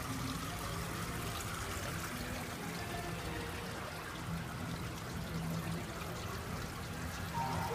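Steady rushing background noise with a faint low hum underneath.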